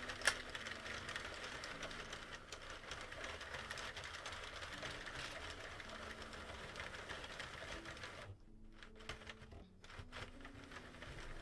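Hand-cranked Sentro 48-needle circular knitting machine knitting: a fast, steady clatter of its plastic needles and carriage going round. It opens with a sharp click, pauses briefly about eight seconds in, then starts again.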